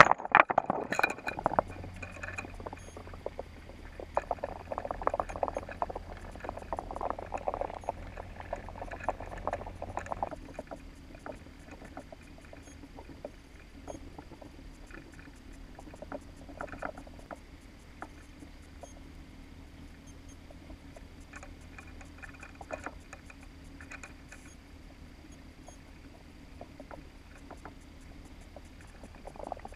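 Underwater sound from a camera housing on a trawl net under tow: a steady low hum with irregular clicks and knocks, busy and louder for the first ten seconds or so, then quieter with scattered ticks.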